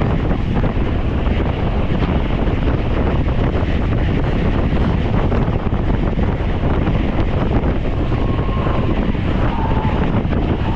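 Wind rushing over the microphone of a camera riding on a moving bicycle: a loud, steady buffeting noise.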